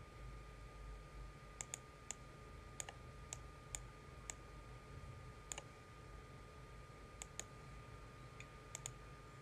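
Computer mouse button clicks: about a dozen single clicks at irregular intervals, some in quick pairs, over a faint steady hum.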